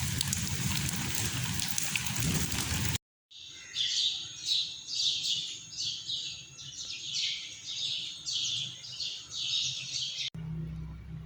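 A songbird repeating a short, sharply falling whistled call about twice a second for several seconds. It is preceded by a steady rushing hiss, and a low rumble begins near the end.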